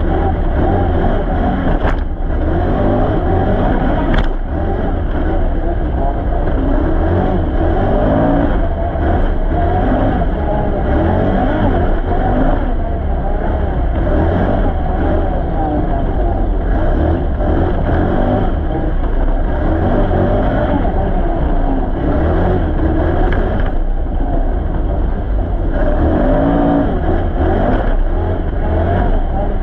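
Can-Am Renegade ATV engine running under way, its pitch rising and falling steadily as the throttle is worked, with a heavy low rumble underneath.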